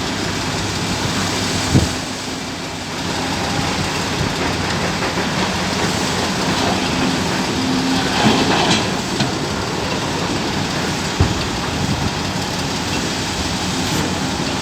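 Heavy diesel engines of a Volvo EC950EL mining excavator and a CAT 777E haul truck running steadily, with a couple of sharp knocks.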